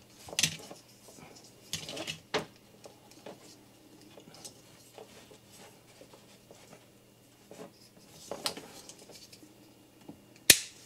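Plastic parts of a Transformers action figure clicking and scraping as it is handled and its joints are moved during transformation, in scattered short clicks with one sharper click near the end.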